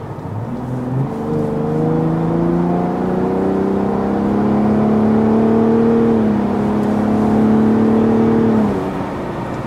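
Ford Raptor's 3.5-litre twin-turbo EcoBoost V6 under hard acceleration in Baja exhaust mode, heard from inside the cab. The pitch climbs as the truck pulls, drops once about six seconds in at an upshift, climbs again and falls away near the end as the throttle eases.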